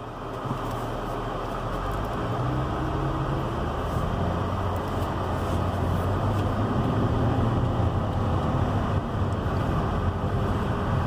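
2012 Ford Fusion 3.0 V6 driving, engine and road noise slowly building as the car picks up speed. The engine keeps running without stalling, the stalling cured by repairing chafed crank-sensor wiring.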